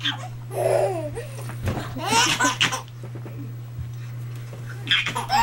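A baby laughing in several bursts of high-pitched giggles.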